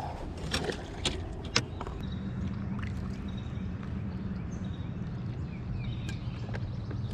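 A few sharp knocks and clatter from handling gear on the boat deck, then, from about two seconds in, the steady low hum of a bass boat's electric trolling motor running.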